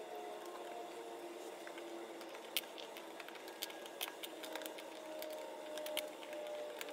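Scattered light clicks and taps from small items being handled and set down, over faint steady tones.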